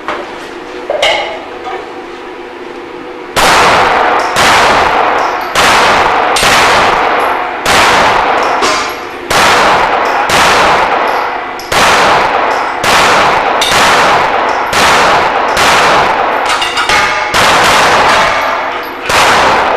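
A practical pistol course of fire: after about three seconds, a long string of pistol shots fired steadily, a little over one a second. Metallic clangs and ringing come from steel targets being struck.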